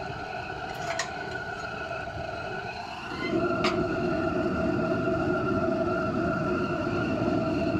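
Homemade propane forge burner running with a steady rushing sound that steps up and gets louder about three seconds in, over a steady whine. Two sharp clicks, one about a second in and one just after the step-up.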